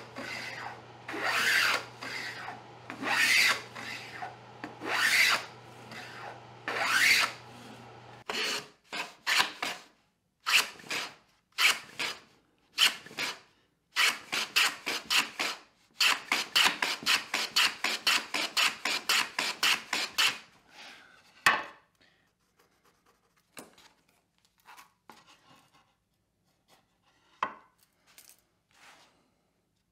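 Hand plane run on its side along a wooden shooting board, its blade slicing shavings off the edge of the wood. At first there are long strokes every couple of seconds. After about 8 seconds come short, quick strokes, about four a second at their fastest. Near the end these give way to faint scratches and taps.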